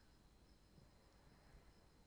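Near silence: faint room tone with a thin, steady high-pitched whine.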